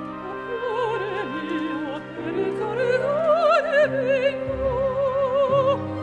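Operatic singing with orchestral accompaniment: a voice with wide vibrato climbs through a phrase and then holds a long note over sustained lower parts.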